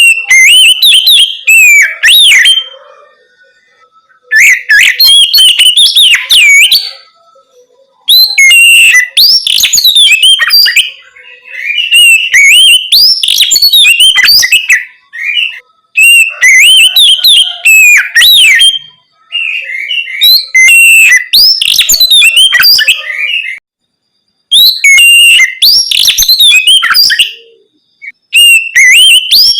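Oriental magpie-robin (kacer) singing its loud, open 'ngeplong' song: a run of phrases each two to four seconds long, packed with quick sweeping whistles, separated by pauses of about a second.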